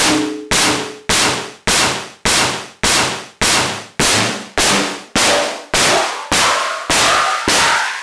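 WMD Kraken Eurorack synthesizer module playing a steady clocked pattern of sharp, noisy percussive hits, a little under two a second, each decaying quickly. A faint pitched ring within each hit drifts higher near the end.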